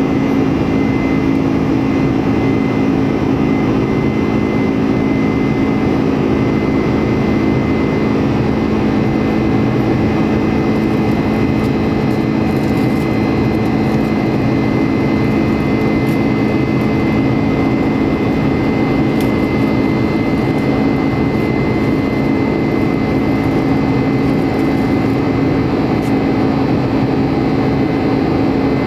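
Steady drone of a Boeing 747-400's Pratt & Whitney PW4056 turbofans and rushing air, heard inside the cabin, with an even low hum running through it.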